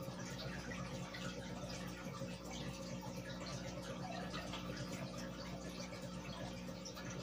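Aquarium air bubbling: a stream of air from a sponge filter rising and popping at the water's surface in a steady, dense patter, over the steady low hum of the air pump.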